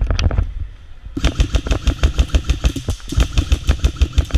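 Airsoft gun firing on full auto in rapid bursts: a short burst at the start, then a long, steady stream of rapid shots from about a second in.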